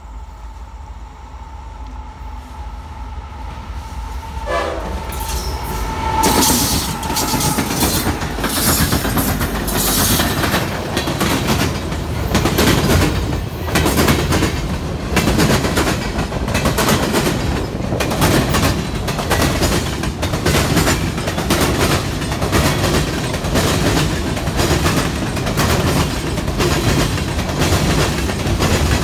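A Norfolk Southern freight train approaching with its horn sounding; the horn cuts off about seven seconds in as the locomotives reach and pass close by. A long string of freight cars then rolls past with a steady rumble and rhythmic clacking of wheels over the rail joints.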